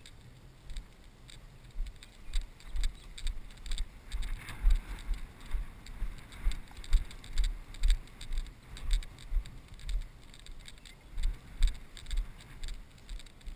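Footsteps of a person walking steadily through grass, dull thumps about twice a second jolting a body-worn camera, with light rustling.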